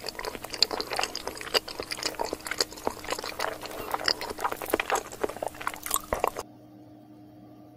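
Close-miked chewing of a big mouthful of sushi: a dense run of small clicks and smacks. It stops abruptly a little past six seconds in, leaving only a faint steady hum.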